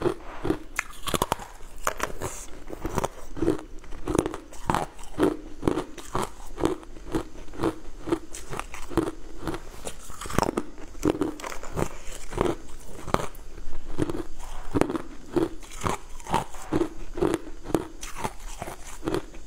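Close-up crunching and chewing of frozen sweet ice pieces dusted in powder, bitten and crushed between the teeth in a steady run of sharp crunches, about two a second.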